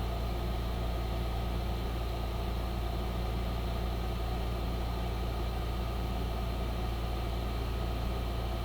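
A steady low background hum with a few faint steady tones in it, unchanging throughout.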